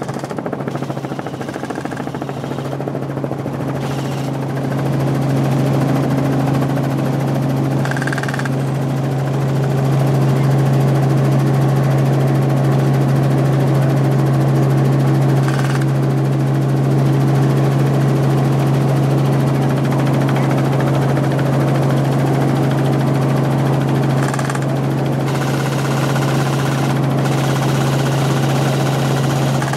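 Helicopter in flight heard from inside the cabin: the steady drone of the engine and rotor with a deep, even hum. It grows louder about five seconds in, with a few short hissy bursts along the way.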